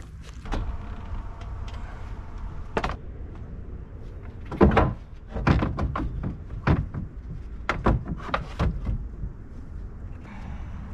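Irregular knocks, clunks and clicks of parts and tools being handled while working on a car's radiator and its fittings, the loudest clunk about halfway through.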